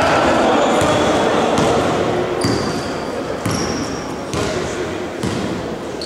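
A basketball being dribbled on a gym floor, about one bounce a second, echoing in a large hall, with the short high squeaks of sneakers on the court.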